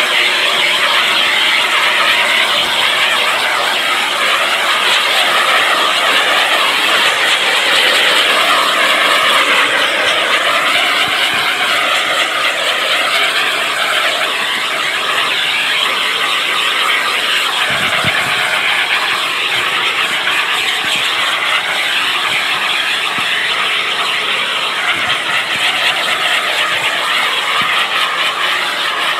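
Propane shrink-wrap heat gun running with a steady, loud roaring hiss as it heats the plastic wrap. A single low thump about two-thirds of the way through.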